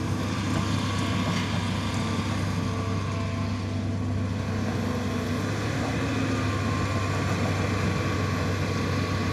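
Hitachi long-reach excavator's diesel engine running steadily while the machine works its boom and bucket.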